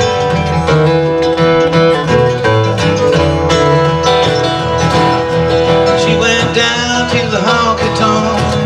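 Live acoustic bluegrass band playing an instrumental break between verses: mandolin and two acoustic guitars, fast picked notes over a steady strummed rhythm.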